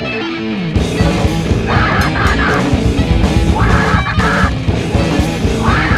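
Heavy metal music with distorted electric guitars, opening with a falling pitch slide and then running on as a dense, loud full-band passage.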